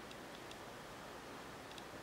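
Faint light ticks, a few scattered, over a steady hiss: a small plastic piping bag and a wooden toothpick touching a plate while icing is spread.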